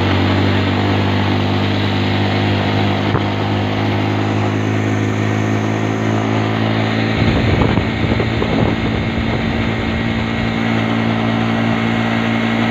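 Vehicle engine running at a steady pitch while driving along a dirt road. A rough low rumble joins about seven seconds in.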